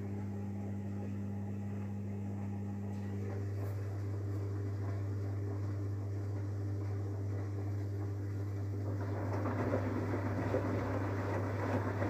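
Samsung front-loading washing machine running its wash cycle: a steady low hum with water and laundry churning in the drum, the churning growing louder about nine seconds in as the drum turns.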